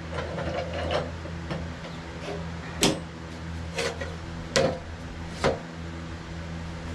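A steady low mechanical hum with several sharp wooden knocks about a second apart, as a heavy piece of sawn timber is shifted on a portable sawmill.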